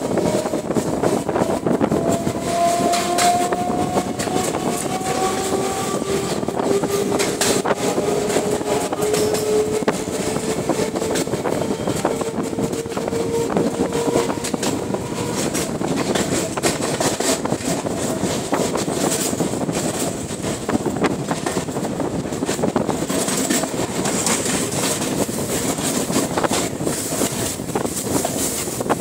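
Suburban electric train running, heard from an open coach doorway: a steady rumble and rattle of wheels on the rails, with many sharp clicks over rail joints. A faint whine climbs slowly in pitch through the first half, typical of the traction motors as the train picks up speed.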